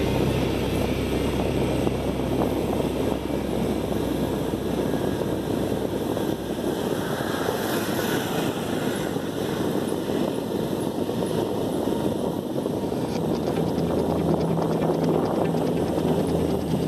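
Motorcycle engine running steadily while riding at low speed, with wind rushing over the microphone.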